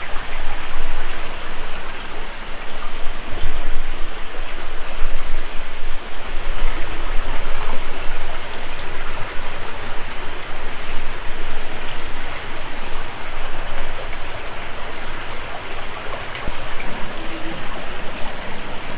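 Water of a small rocky creek rushing and splashing between boulders, a steady dense rush that swells and falls. A thin steady high tone runs over it and stops near the end.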